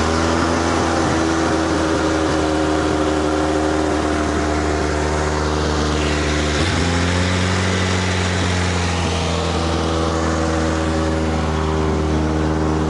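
Chevrolet Lanos's freshly overhauled A15SMS 1.5-litre four-cylinder petrol engine idling steadily just after start-up, with a brief dip in its note about halfway through.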